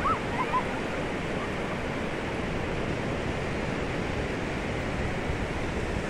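Shallow sea surf washing in over wet sand at the water's edge: a steady rushing wash.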